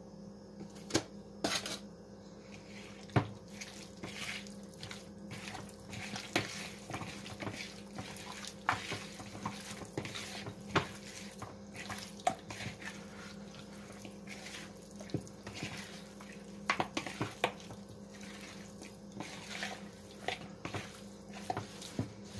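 Raw chicken pieces being hand-mixed with curry powder in a bowl: wet squelching and slapping of the meat, with frequent sharp knocks of meat and fingers against the bowl. A steady low hum runs underneath.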